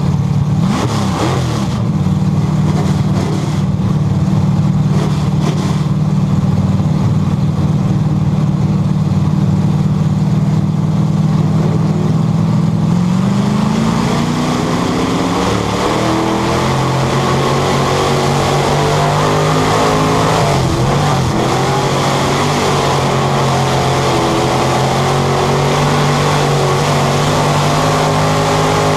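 Purestock dirt-track race car's engine heard from inside the cockpit, running hard at speed with road noise. Its pitch dips briefly at the start, holds steady for about twelve seconds, then shifts about halfway through and settles on a lower steady note.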